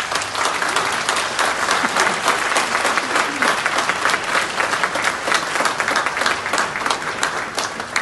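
Audience applauding steadily, many people clapping at once at the close of a speech.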